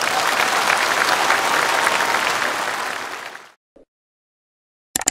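Seated audience applauding, the clapping fading out about three and a half seconds in. Silence follows, with a short click at the very end.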